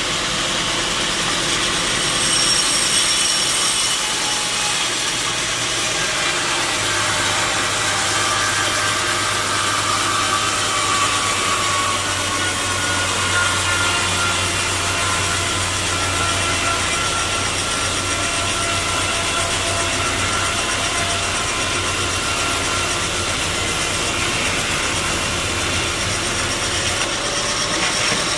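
Sawmill saw running and cutting through a log, with a steady motor hum underneath. A low hum sets in about a quarter of the way through and drops away near the end, and a faint whine shifts in pitch midway.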